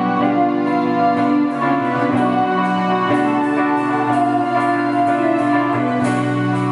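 Rock band playing an instrumental passage: keyboard chords over bass and drums, with regular cymbal strokes.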